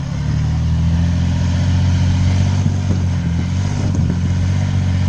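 Off-road vehicle's engine pulling under steady throttle as it crawls over a rock obstacle, the note rising slightly just after the start and then holding, with a few light knocks from tyres and rock around the middle.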